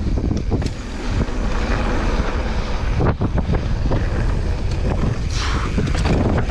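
Wind buffeting the microphone over the rumble and rattle of a mountain bike riding fast down a dirt trail, with a few sharp knocks from bumps.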